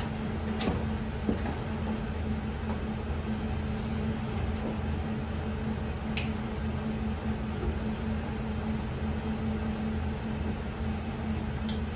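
A steady low mechanical hum, with a few faint clicks of hardware being handled.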